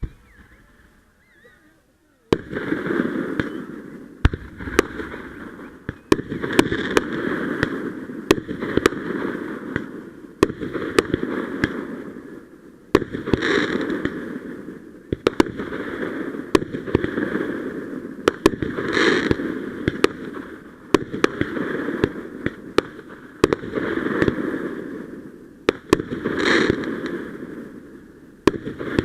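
Fireworks going off in a steady barrage starting about two seconds in: a continuous hiss and crackle that swells and fades every couple of seconds, peppered with many sharp pops and cracks.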